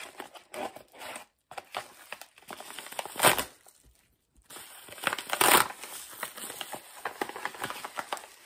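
Scissors cutting into a mail package and the packaging crinkling and rustling as it is opened, in irregular bursts with two louder rustles about three and five and a half seconds in.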